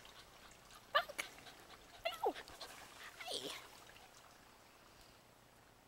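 Puppies vocalizing as they play-wrestle: a couple of short high yips about a second in, then two louder cries that slide down in pitch around two and three seconds in.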